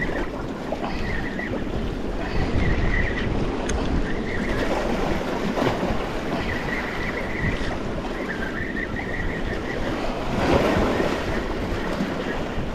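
Sea waves washing in with wind buffeting the microphone, with a louder surge of water about ten and a half seconds in. A faint high whirr comes and goes several times.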